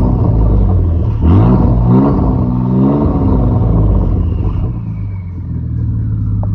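Ford 3.5 EcoBoost twin-turbo V6 with muffler and resonators deleted, revved up twice in quick succession and dropping back to a steady idle. As it settles, a turbo whistle falls slowly in pitch.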